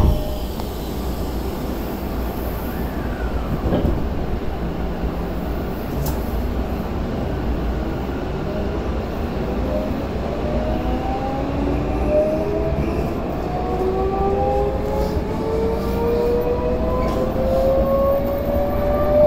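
Tokyo Metro 16000 series electric train pulling away from a station, heard from inside the car: a short thump at the very start, then low running rumble. From about halfway in, the VVVF inverter and traction motors whine in several tones that climb steadily in pitch as the train accelerates.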